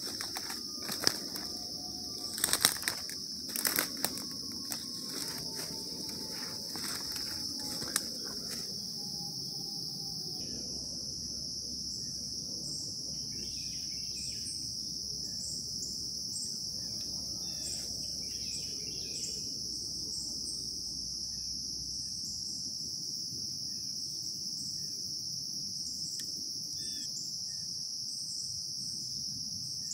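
Steady chorus of night insects (crickets and katydids) with a continuous high-pitched drone. Several sharp knocks and rustles sound in the first few seconds.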